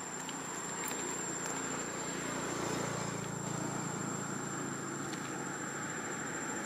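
Engine of a passing road vehicle, a low hum that swells over the first few seconds and then eases, with a thin steady high-pitched whine above it.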